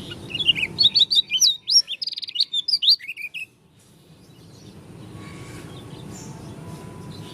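Pleci (white-eye) from Lombok, dakun type, singing a fast twittering song of quick, high, up-and-down notes that breaks off abruptly about three and a half seconds in.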